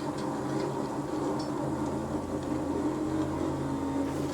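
Steady drone of a police patrol car's engine and road noise heard inside the cabin during a pursuit, with a deeper hum joining underneath about a second and a half in.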